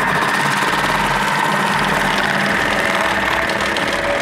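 Thermomix food processor running the Cutter accessory's spinning grating disc, shredding a carrot pressed down the feed chute: a loud, steady whirring motor with a rough shredding texture.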